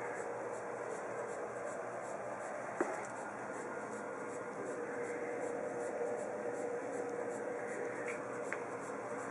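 Steady hiss with a faint hum and the light rubbing of a handheld phone being moved about, with one sharp click about three seconds in.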